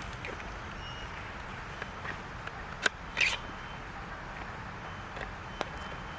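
Steady low outdoor background rumble. A sharp click comes a little under three seconds in and is the loudest sound. A short rasping rustle follows just after it, and a lighter click comes near the end.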